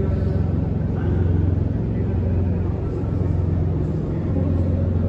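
Snack frying line machinery running with a steady low hum.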